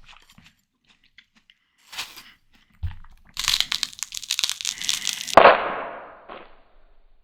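Ripe watermelon being bitten and chewed close to the microphone. About three and a half seconds in comes a dense crackle of crisp flesh breaking for about two seconds, ending in one louder bite that fades away.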